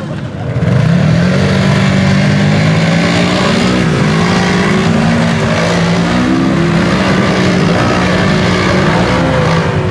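Side-by-side UTV engine revving hard, its pitch rising and dipping over and over as the throttle is worked. It is briefly lower at the start and picks up about a second in.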